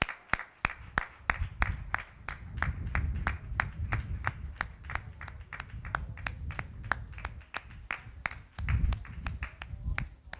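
Hands clapping in a steady rhythm, about three to four claps a second, stopping just before the end, with a low rumble underneath.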